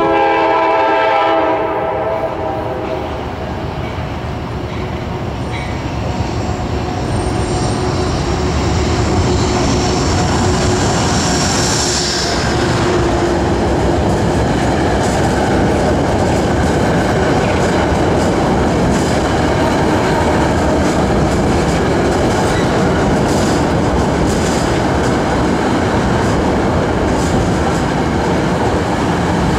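Metro-North commuter train sounding its horn for about two seconds as it approaches, then running past on the elevated track, with a high whine swelling about twelve seconds in and steady wheel-and-rail noise and clicking over the rail joints as the cars go by.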